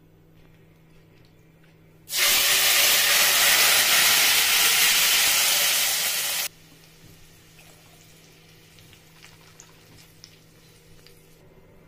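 Blended pepper and tomato purée poured into hot oil in a pot: a loud sizzle that starts suddenly about two seconds in and stops abruptly some four seconds later. Faint scattered crackles follow as the sauce fries.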